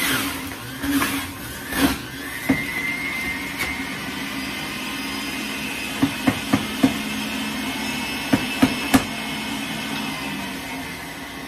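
Breville centrifugal juicer running steadily as vegetables are pushed down its feed chute, its motor giving a constant hum and whine. Sharp knocks come near the start, and two quick runs of clicks come around the middle and later on.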